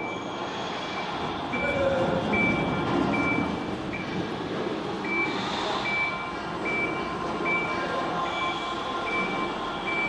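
Electronic motion-warning beeper on an omnidirectional mecanum-wheel transport platform, giving short high beeps at a steady pace of about one every three-quarters of a second while the platform moves, over the low whir of its drive.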